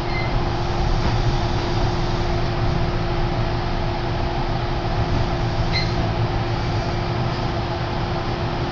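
Inside a Kintetsu Yunoyama Line train car running along the line: a steady rumble of wheels on the rails, with a constant low hum.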